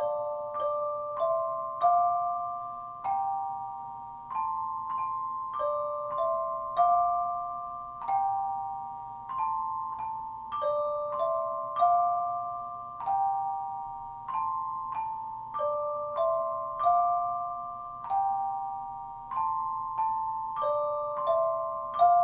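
Glockenspiel accompaniment in two parts played together, upper and lower voices each striking short stepwise note patterns that ring and fade, repeated over and over as an ostinato.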